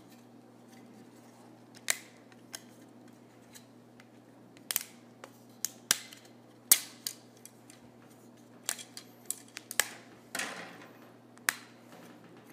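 Sharp snaps and clicks of 3D-printed plastic face-shield headbands being pried off a stacked print by hand as the thin layers between them let go, about a dozen irregular snaps with the loudest a little past halfway, and a short rustle of plastic near the end.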